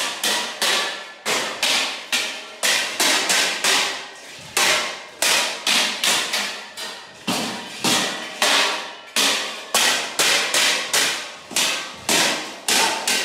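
Swords striking round metal shields in Kalaripayattu sword-and-shield sparring: a rapid, steady series of ringing metal clangs, about two a second.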